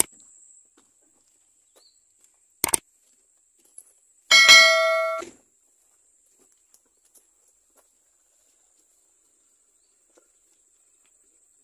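A sharp click, then about a second and a half later a single bright bell chime that rings for about a second and fades: the sound effect of a subscribe-button animation. Otherwise near silence.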